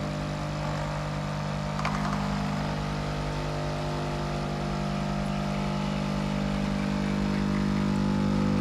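Kotlie 4-in-1 capsule coffee machine's pump running steadily as it brews a ground-coffee filter cup, a constant buzzing hum that grows slightly louder.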